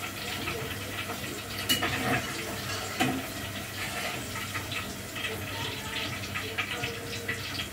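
Cauliflower florets frying in a pan of hot oil, a steady sizzle. A few sharp clicks of a utensil against the pan come about 2 and 3 seconds in.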